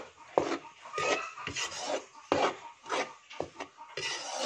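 Spatula scraping and stirring dry flour and powdered milk around a metal pan, about two strokes a second. The flour is being stirred constantly while it toasts so it doesn't burn.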